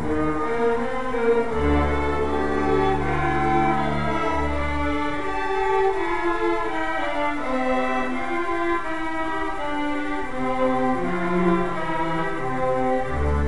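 String orchestra playing, violins and cellos bowing long held notes over a low bass line that drops out about five seconds in and returns near the end.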